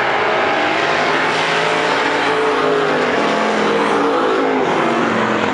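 Several dirt-track Sportsman race cars running at racing speed around the oval, their engines loud and steady. Overlapping engine notes rise and fall as the cars go past.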